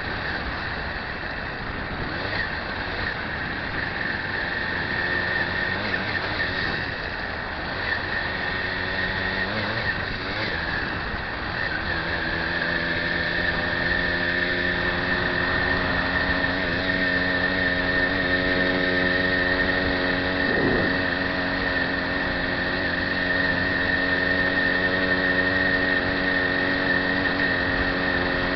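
Riding a bike along a road, heard from a camera mounted on the bike: road and wind noise under a steady high whine. A steady mechanical hum joins it about twelve seconds in.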